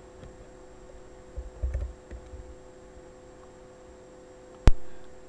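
A few dull bumps about a second and a half in, then one sharp click near the end, over a steady electrical hum: handling noise at a computer while a menu is being worked.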